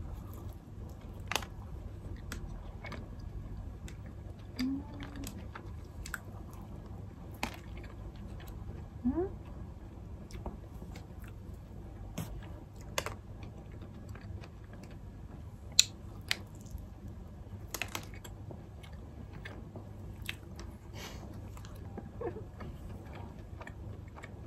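Close-up biting and chewing of a soft cream-filled donut: quiet mouth sounds with scattered small clicks and ticks, and a couple of brief low hums about 5 and 9 seconds in.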